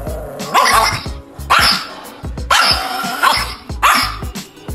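Chihuahua barking angrily, a series of about five loud barks roughly a second apart.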